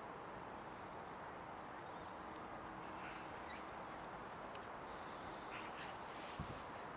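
Outdoor park ambience: a steady background hush of distant city noise, with a few faint bird chirps scattered through and a soft thump near the end.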